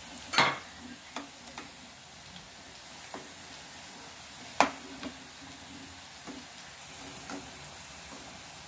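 Urad dal vadas sizzling as they deep-fry in hot oil, with a metal spoon clinking against the pan several times as they are turned. The loudest clinks come about half a second in and just past the middle.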